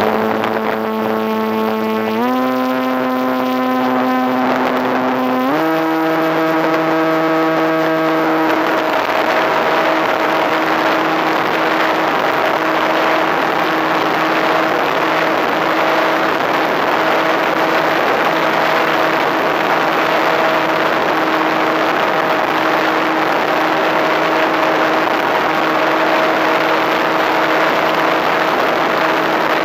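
FPV Raptor model plane's motor and propeller running under the onboard camera, stepping up in pitch twice in the first few seconds, then holding a steady drone. A constant rush of air is heard under it.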